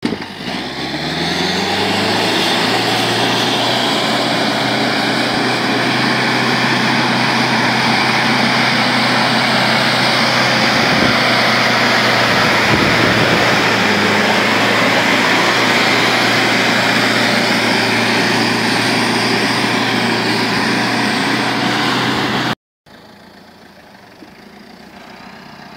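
Modified Mahindra 4x4 jeep's engine revving up over the first second or so, then held at steady high revs as it drives through loose sand, with a loud, steady rush of noise over it. Near the end the sound cuts off abruptly to a moment of silence and comes back much quieter.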